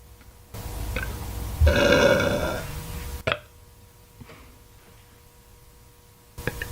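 A woman burping once: one drawn-out, pitched burp lasting about a second, starting about a second and a half in, followed by a short sharp click.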